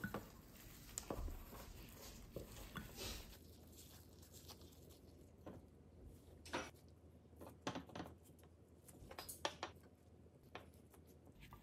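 Faint, scattered soft taps and rustles of plastic-gloved hands pressing seasoned rice in a stainless steel bowl and setting the rice balls down on a ceramic plate.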